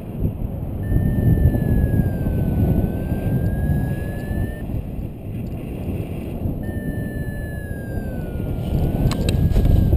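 Wind rushing over the microphone of a paraglider in flight. A high electronic tone that wavers slightly in pitch sounds twice, for about four seconds each time, and a few clicks come about nine seconds in.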